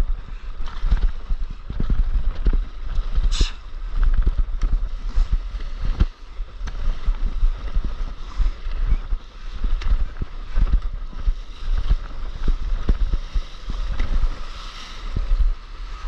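Water splashing and lapping around a stand-up paddleboard as it is paddled over small swells, with wind buffeting the microphone in irregular low gusts.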